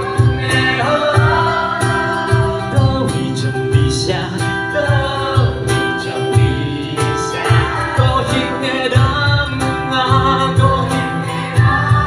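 Live acoustic band playing a song: strummed acoustic guitars, a cello and a cajón keeping a steady beat, with a voice singing over them.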